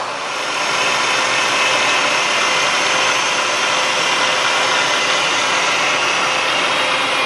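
Vertical milling machine running and cutting a metal workpiece: a steady machining noise with several steady high tones in it, a little louder from about half a second in.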